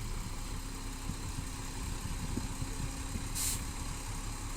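Heavy diesel engine running steadily at low revs, a low rumble from a small bulldozer or a dump truck. A short hiss cuts in about three and a half seconds in.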